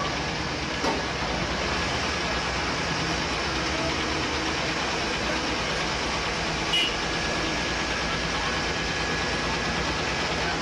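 A heavy crane truck's engine running steadily over the rubble, with faint voices around it. It cuts off suddenly at the end.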